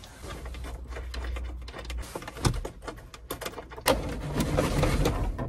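Hand tools working on the car's dashboard screws: scattered clicks and knocks, then a run of quick mechanical clicking from about four seconds in.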